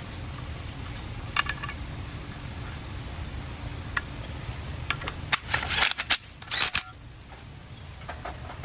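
Metal tools and parts clicking and clinking while a dial indicator mounting plate is fitted to a differential housing. There are a few single clicks, then a quick run of sharp clicks and scrapes about five to seven seconds in, over a steady low hum.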